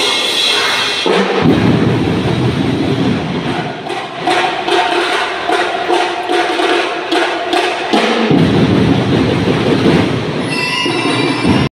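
A drum and lyre corps playing: drums beating a quick, steady cadence under a bell-lyre melody. The sound cuts out suddenly near the end.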